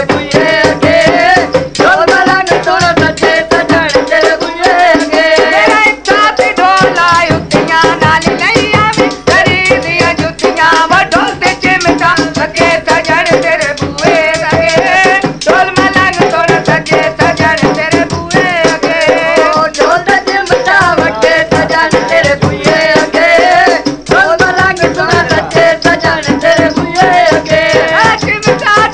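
Punjabi folk music in the mahiya style: dhol drum and chimta (jingling tongs) keeping a fast, steady rhythm under a wavering melody line.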